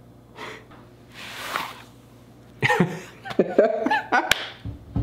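A man's exasperated wordless reaction: two heavy breaths out, then groaning, laughing voice sounds from about halfway through.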